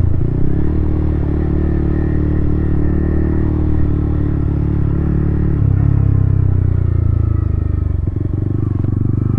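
Yamaha MT-15's 155 cc single-cylinder engine running at steady low revs through an aftermarket Akrapovic titanium exhaust. The note shifts slightly a little past halfway and dips briefly near the end.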